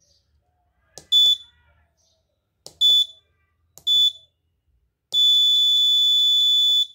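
Piezo buzzer on an Arduino bell-timer board beeping as its push buttons are pressed: three short high beeps, each led by a faint button click, then one long beep of nearly two seconds near the end.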